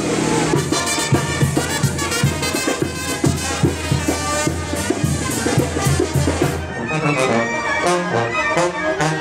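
Brass band music: trumpets and trombones playing over a steady drum beat.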